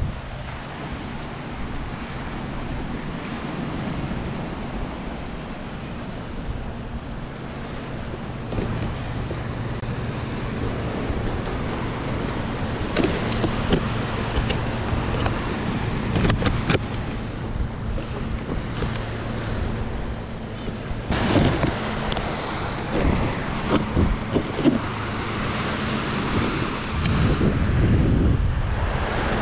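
Surf washing onto a sandy beach, with wind buffeting the microphone. Several short sharp noises come through in the second half.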